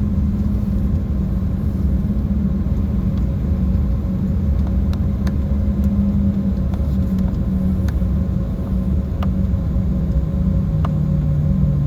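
Steady low rumble inside the cabin of an Embraer 190 jet taxiing after landing, with a constant engine hum that drops in pitch near the end, and a few faint ticks.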